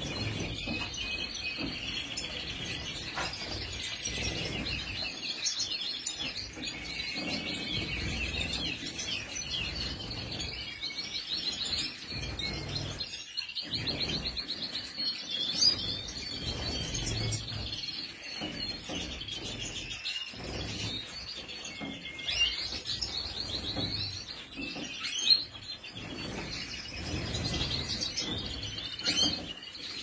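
European goldfinches twittering and chirping continuously, a fast run of high, rapid notes, with a few short sharp knocks.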